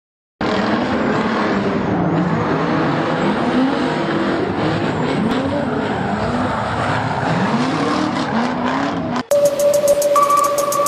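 Drift car's engine revving, its pitch rising and falling over and over, under a dense hiss of tyres sliding and squealing. It cuts off suddenly about nine seconds in, giving way to held tones and a fast ticking.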